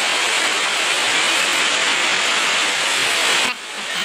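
Heavy rain pouring, a steady loud hiss that drops away suddenly for a moment near the end.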